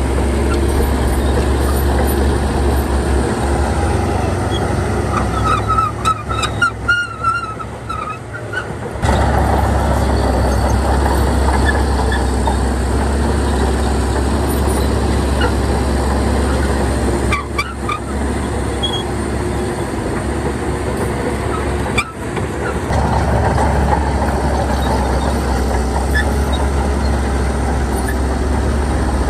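Heavy diesel construction machinery running steadily with a deep rumble. About six seconds in, the rumble drops for a moment and a short run of high squeals is heard.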